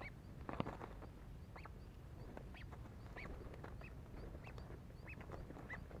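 Watercocks calling: short, arching clucks repeated about once or twice a second. One sharp knock comes about half a second in.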